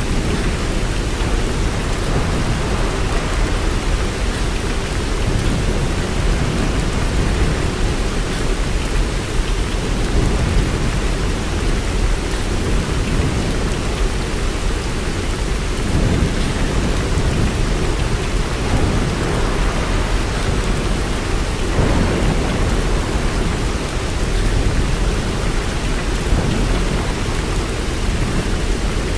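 Steady rain with a low rumble of thunder underneath, swelling a little now and then.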